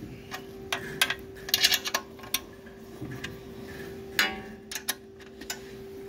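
Irregular metallic clicks and clinks of hand tools being worked on the bike, a few single ticks and two short quick clusters, over a steady low hum.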